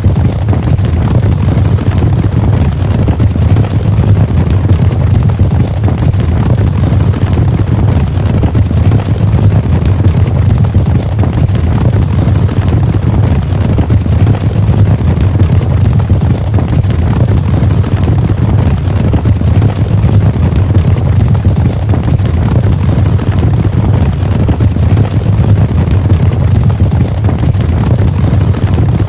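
Cavalry on the move: many horses galloping, their hoofbeats blending into a dense, steady low rumble.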